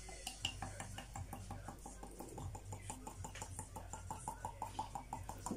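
Cooking oil glugging out of a plastic bottle into a plastic measuring jug: a quick, even gurgle of about six or seven pulses a second.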